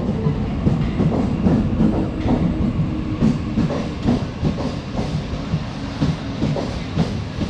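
Mumbai Western Railway suburban electric local train rolling along the platform: a steady rumble with frequent clattering knocks from the wheels, and a faint steady hum joining about two seconds in.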